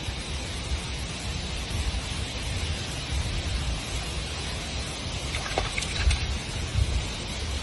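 Outdoor wind: uneven low rumble of wind buffeting the microphone over a steady hiss like rain or rustling leaves, with a few faint clicks near the end.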